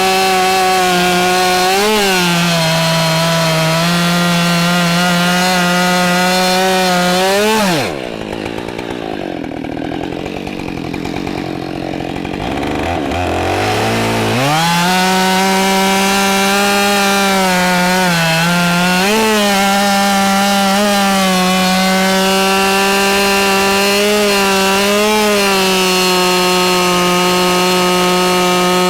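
Husqvarna 572 XP two-stroke chainsaw running at full throttle, cutting through oak logs. About eight seconds in it drops to idle for several seconds, then revs back up and keeps cutting at a steady high pitch.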